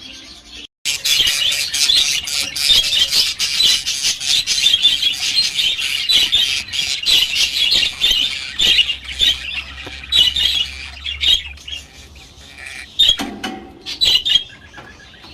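A colony of budgerigars chattering and chirping together, a dense, constant twittering that starts abruptly about a second in.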